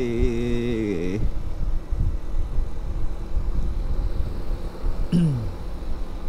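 Wind and road rumble from a moving motorcycle, heard through a helmet-mounted camera. A wavering pitched hum stops about a second in, and a short falling tone comes about five seconds in.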